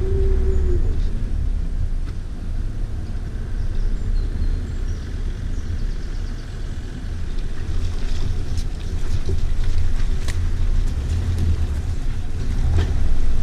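Land Rover Freelander's 1.8 turbo engine running under load as the car crawls off-road, a steady low rumble with scattered clicks and knocks in the second half.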